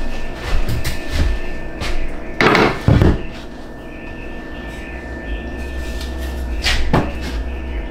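Pine shelf board handled and set down onto metal wall brackets: a few light knocks, then two loud wooden knocks about two and a half to three seconds in as it lands. A single sharper knock comes near the end.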